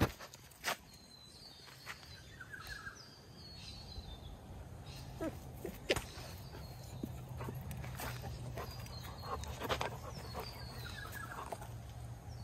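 Dogs moving about at a chain-link fence: scattered knocks and footfalls, with short downward-sliding bird chirps. A low steady hum builds from about four seconds in.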